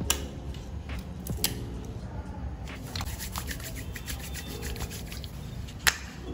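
Clear glue slime being poked and pressed with fingers in a plastic tub, giving sharp sticky clicks and pops every second or two; the slime is still a little sticky.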